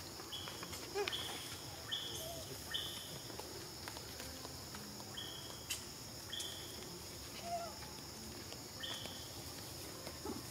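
Outdoor insect drone, a steady high hum, with short high-pitched chirps repeating every second or so and a few faint clicks.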